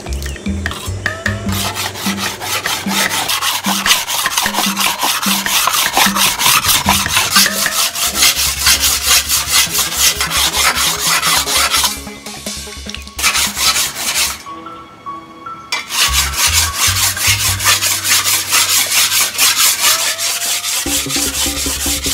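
A steel kitchen cleaver being sharpened on a whetstone: rapid back-and-forth grinding strokes in two long bouts, with a pause of a few seconds in the middle. Soft background music runs underneath.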